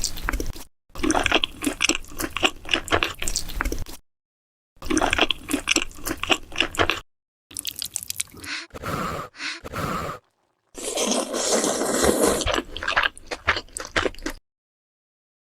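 Close-up mukbang eating sounds: wet, squishy chewing and crunching in several short edited stretches, each cutting off into dead silence, with a smoother hissing slurp-like stretch about eleven seconds in.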